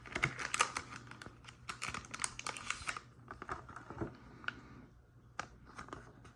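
Yu-Gi-Oh! trading cards and their packaging being handled: rapid light clicks and rustles, thinning to scattered single clicks after about three seconds.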